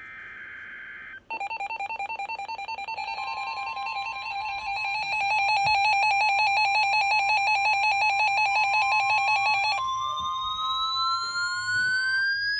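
Emergency Alert System signal: a short burst of header data tones, then a loud, rapidly pulsing buzzy alert tone with a steady higher tone joining it. About eight seconds in, the pulsing stops and a tone rises steadily in pitch alongside the steady one.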